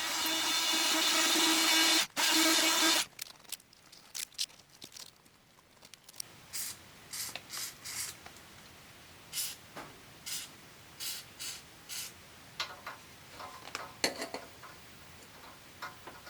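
A steady hissing, humming workshop tool runs and cuts off about three seconds in, followed by scattered light taps and clicks of tools and parts being handled.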